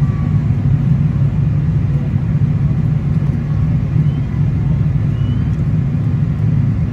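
Steady low rumble of a Boeing 777-300ER's engines and airflow heard inside the passenger cabin, holding an even level throughout.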